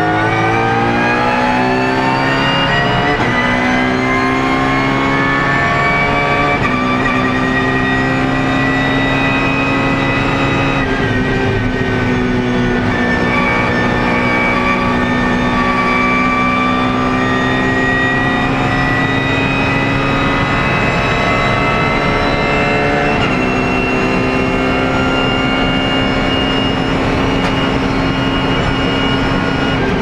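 BMW Z4 GT3 racing car's 4.4-litre V8 at full throttle, heard from inside the cockpit. The engine note climbs steeply at first, then holds high and rises slowly through long pulls, broken by a few gear changes.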